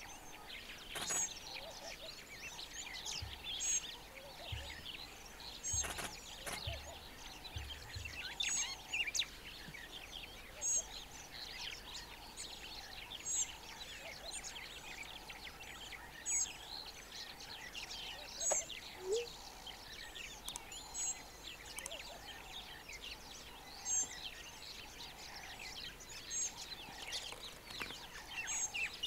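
Wild birds chirping and calling, with a high two-note call repeating every few seconds over a busy background of short chirps.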